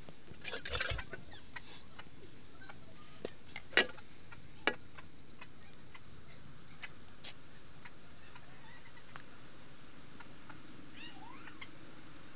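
Chickens clucking faintly in the background over a quiet, steady sizzle of chopped onions frying in oil in an iron karahi, with two sharp knocks about four seconds in.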